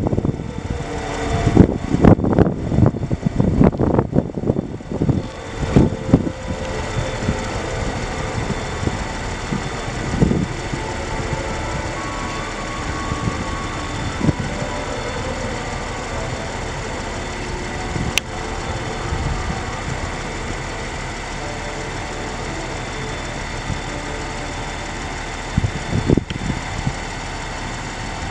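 Outdoor city ambience with a steady traffic and engine rumble. Heavy, irregular low rumbles and knocks fill the first six seconds, then it settles to an even background with a brief knock near the end.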